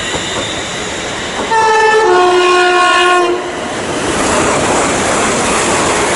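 A train's two-tone horn sounds about a second and a half in, a higher note dropping to a lower one and held for about two seconds. It is followed by the growing rush and wheel noise of a train running through the station.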